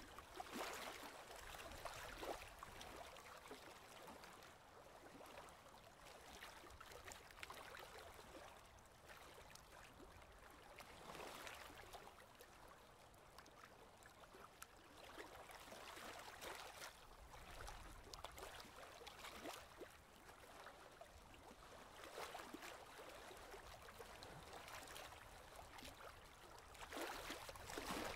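Faint splashing and trickling of a kayak paddle working the water, swelling with each stroke every few seconds as the blade dips and water runs off it.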